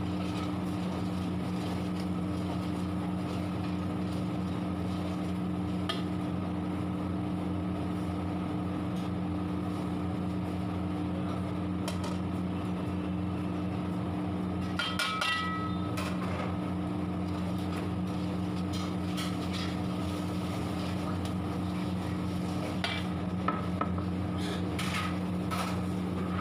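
A steady low mechanical hum carries on under a long metal ladle stirring, scraping and knocking against a large steel kadhai of onions and masala frying in oil. There are scattered clinks, a brief ringing of metal around the middle, and a run of knocks near the end.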